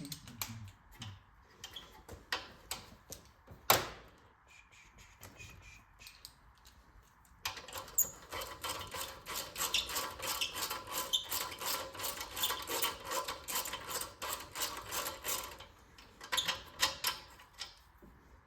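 Impact wrench hammering rapidly on a bolt for about eight seconds, starting about seven seconds in. Before it come a few scattered clicks and one sharp knock.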